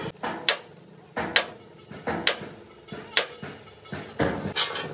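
A string of sharp hammer blows on steel, about two a second and unevenly spaced, each with a short metallic ring.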